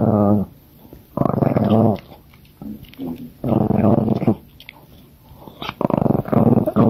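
Chihuahua growling in a series of low growls, four or five in all, each under a second, with short pauses between them.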